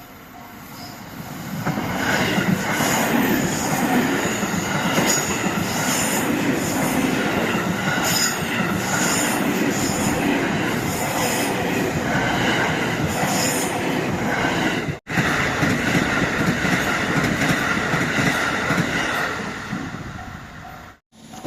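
A train passing over a railway level crossing, its wheels clattering rhythmically over the rail joints, with a steady whine above the rumble. The crossing's warning bell beeps faintly before the train arrives and again after it has gone. The sound cuts out for a moment about fifteen seconds in.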